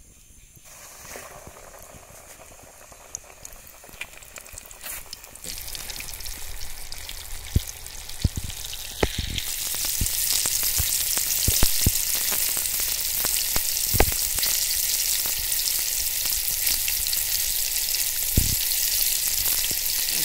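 Flour-coated chicken pieces deep-frying in hot oil in a large kadai: a faint sizzle that grows in two steps, about a quarter and halfway through, into a loud, steady hiss as the pieces go in. A few sharp clicks stand out over it.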